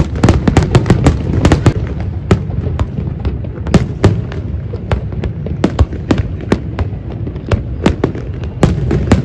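Aerial fireworks display: shells bursting in an irregular barrage of sharp bangs, several a second, over a steady low rumble.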